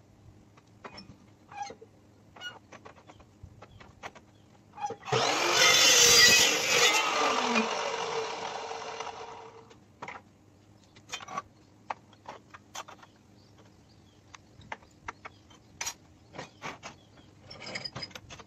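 Evolution metal-cutting chop saw starting up and cutting through square steel tubing. The loud cut lasts about four seconds, a third of the way in, then the blade winds down with a falling pitch. Before and after it come scattered clicks and clanks as the tubing is clamped and moved on the steel bench.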